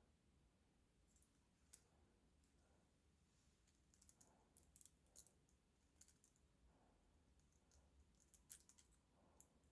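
Faint, scattered clicks of small plastic model railway parts being handled and test-fitted, in near silence.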